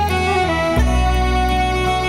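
Instrumental break in an Irish folk ballad: a melody line with sliding ornaments over sustained low bass notes, the bass changing note a little under a second in.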